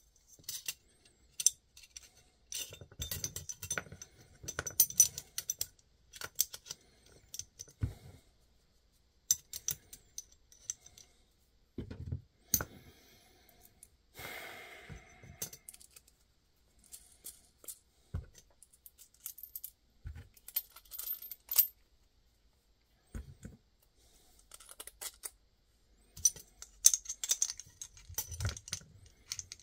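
Small cut pieces of metal channel and hardware clinking and clicking as they are handled and set down on a rubber work mat, in irregular clusters of light knocks, with a short scraping rub about halfway through.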